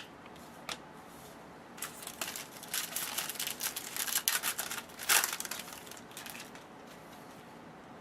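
Trading-card packaging and cards being handled: a couple of light clicks, then several seconds of irregular plastic or foil crinkling and rustling, loudest about five seconds in.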